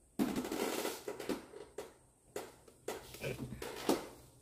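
Rustling and handling noises, then several light knocks and clicks spaced a little apart.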